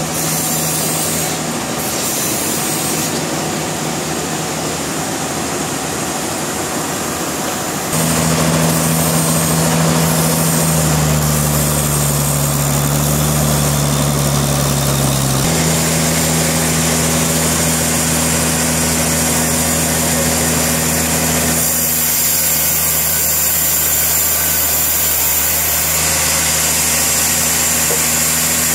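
Sawmill engine and saw running steadily through a log. It gets louder about eight seconds in, and its pitch changes about halfway through.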